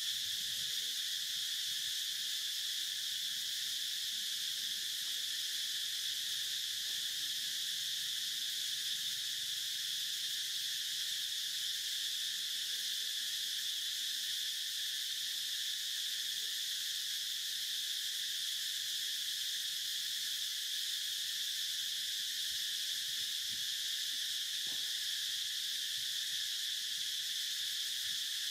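Steady insect chorus: a continuous high-pitched drone that holds level without a break.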